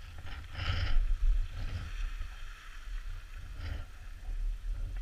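Skis hissing and scraping over packed snow during turns, with wind buffeting the action camera's microphone as a steady low rumble.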